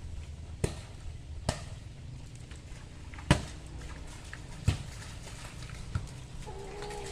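Volleyball being struck: five sharp slaps spread over several seconds, the middle one loudest, over a steady low rumble.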